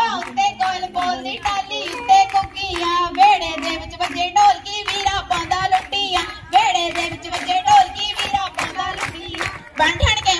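Girls singing a Punjabi boliyan folk verse over steady rhythmic hand-clapping that keeps the beat for a giddha dance.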